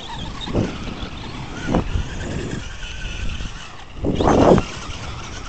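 Electric RC trucks driving on dirt, their motors giving a steady high whine, with a few short louder rushes of noise; the loudest comes about four seconds in.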